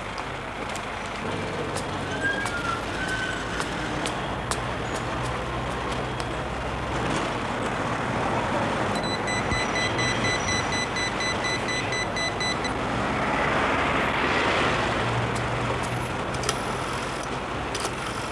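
Street traffic noise, with cars passing and a steady rumble, swelling for a moment about two-thirds of the way through. For a few seconds in the middle a rapid, evenly repeating electronic beep sounds over it.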